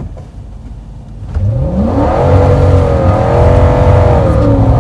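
Toyota Tundra pickup's engine floored from a stop in two-wheel drive: it idles for about a second, then revs up hard with a steeply rising pitch. It holds high and drops in pitch near the end as the automatic transmission shifts up.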